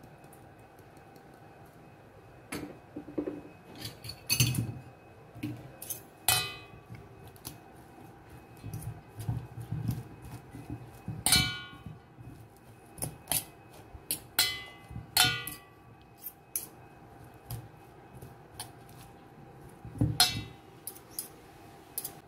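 Two metal forks tossing shredded cabbage in a stainless steel bowl: irregular clinks and scrapes of the forks against the bowl, several ringing briefly, starting a couple of seconds in.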